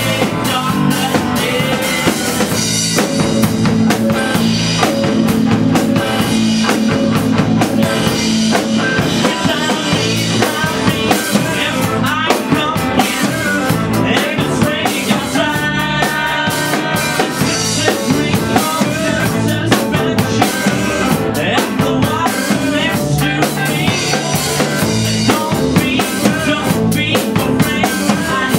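Live rock band playing loudly: a drum kit keeping a steady beat under electric guitars, with a singer's voice over the top.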